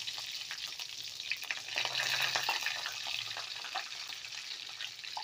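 Fresh curry leaves sizzling in a spoonful of hot oil in a kadai during tempering: a steady hiss with many small, quick crackling pops.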